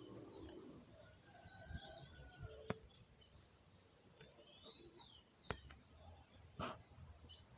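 Several small birds chirping and twittering, faint, with short quick high calls overlapping throughout. A few sharp clicks stand out, the loudest about two and a half seconds in and twice more near the end.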